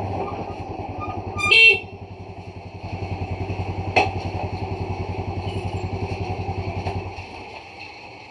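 A small motorcycle engine idles with an even pulsing beat. Its horn gives one short honk about a second and a half in, the signal for the gate to open or close. A sharp click comes about four seconds in, and the engine sound stops about seven seconds in.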